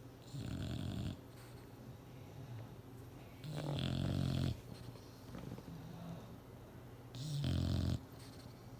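English bulldog snoring in its sleep: three loud snores about three and a half seconds apart, with softer breathing between them.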